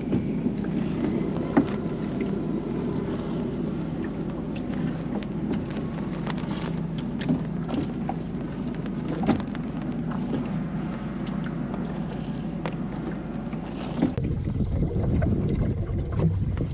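Small wooden sailing dinghy, a Welsford Navigator yawl, under sail: a steady wash of water along the hull mixed with wind on the microphone, with scattered small clicks and knocks from the boat. About fourteen seconds in, the sound turns lower and louder.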